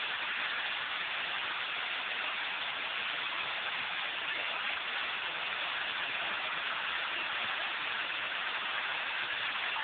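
Waterfall: the steady rushing of falling water, an even hiss with no change in level.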